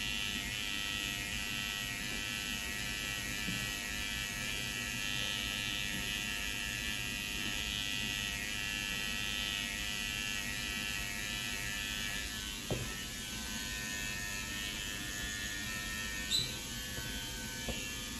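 Electric hair clippers buzzing steadily while cutting hair around the sides and neck. A couple of light clicks come about two-thirds of the way through and again near the end.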